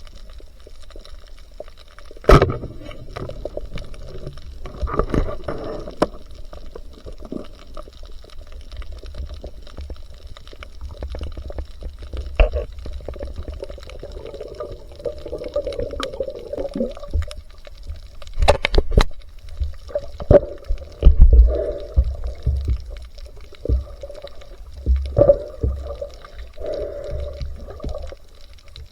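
Muffled water sounds, moving and gurgling, as heard by a camera in or at the surface of the sea, broken by occasional sharp knocks and clicks.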